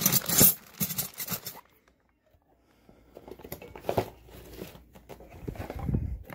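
Plastic-wrapped tools and packaging crinkling and rustling as they are handled and packed into a fabric tool bag. A burst of rustling, a pause of about a second, then more rustling ending in a dull bump near the end.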